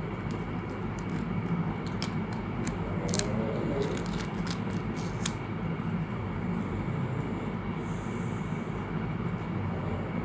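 A steady low rumble of background noise, with a scatter of sharp little clicks and crinkles in the first half as clear plastic film and a squeeze bottle are handled.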